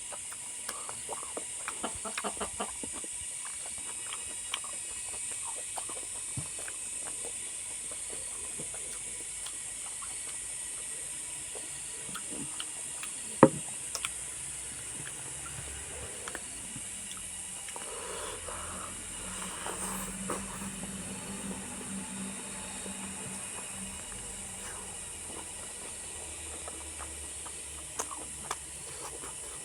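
Mukbang eating sounds: quiet chewing with scattered small clicks and one sharp click about halfway, over a steady high hiss.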